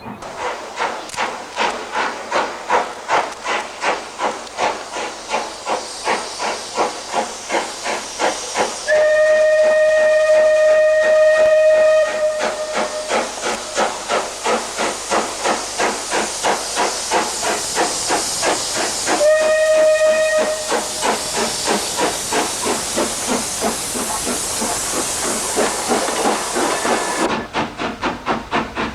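GNR 4-4-0 steam locomotive working hard from a start: a fast, steady run of exhaust chuffs over a loud hiss of steam, with two blasts on the steam whistle, the first about three seconds long and the second shorter. Near the end the hiss cuts off suddenly while the chuffing carries on.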